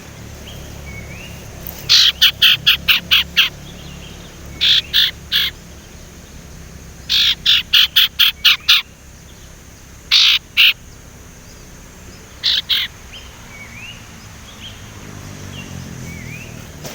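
A sirtu songbird chattering: rapid runs of short, sharp repeated notes, about four a second, in five separate bursts with pauses between. Faint short rising whistles sound between the bursts.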